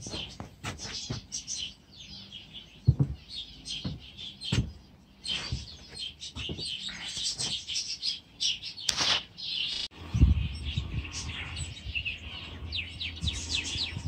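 Small aviary birds chirping and twittering over and over, with a few low thuds mixed in. A low rumble joins about ten seconds in.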